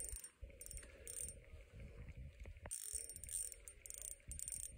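Small ice-fishing reel clicking in short bursts as a hooked fish is played at the hole.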